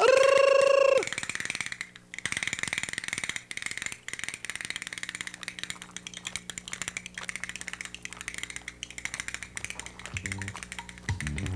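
A voice holds a high note for about a second, then hand castanets clatter in rapid, continuous clicking for about nine seconds. Low music notes come in near the end.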